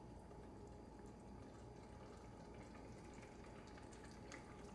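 Near silence: a pot of stew simmering faintly, with a few soft bubbling ticks over a low steady hum.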